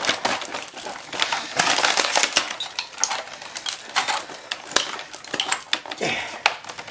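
The layered screen of an LG LCD monitor cracking and crinkling as a cut-out section is pried and bent away by hand: a dense run of sharp snaps and crackles.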